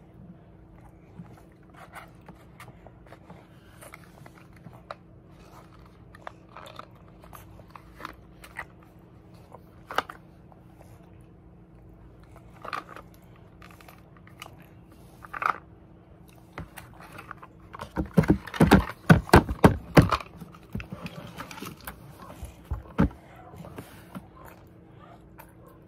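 Scattered small clicks and eating sounds of young children chewing small chocolate cones, with a run of loud, close clattering knocks lasting about two seconds some eighteen seconds in.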